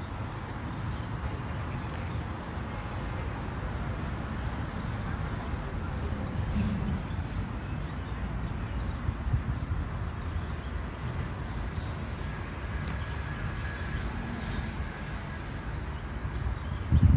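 Outdoor background noise: a steady low rumble, with faint high bird chirps now and then.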